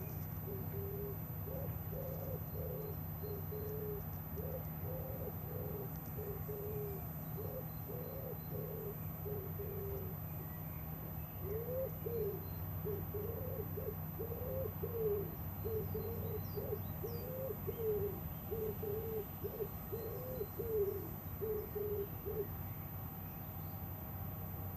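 A bird calling over and over in short, low hooting notes, about one to two a second with a brief pause midway, over a steady low hum; faint higher chirps of small birds now and then.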